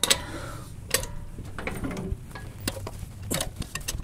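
Metal clicks and clinks of a socket wrench on 19 mm wheel lug nuts as they are broken loose, a handful of sharp clicks at irregular intervals.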